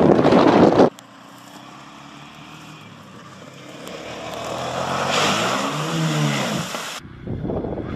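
A loud noise that cuts off abruptly about a second in. Then a quad bike's engine, faint at first, revs up with rising pitch and eases off again as the ATV ploughs through water, with the hiss of splashing spray. Near the end a sudden cut brings in another loud noise.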